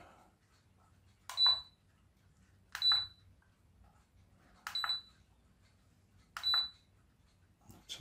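Four button presses on a B6 Pro hobby battery charger, each a click with a short high beep, spaced about one and a half to two seconds apart. The charger is being stepped through its program-select menu to NiMH battery mode.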